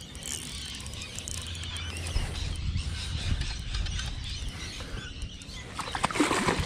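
Faint bird chirps over a low wind rumble, then a hooked yellowtail kingfish splashing at the water's surface near the end.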